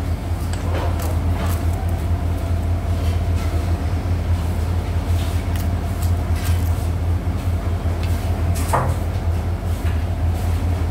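Steady low machine hum with scattered light clicks and taps.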